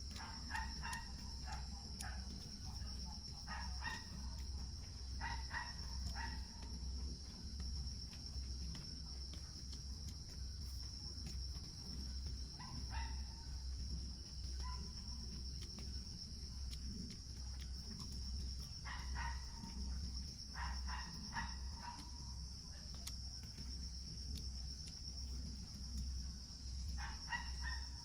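Forest insects trilling continuously, with short bird calls breaking in every few seconds over a low background rumble.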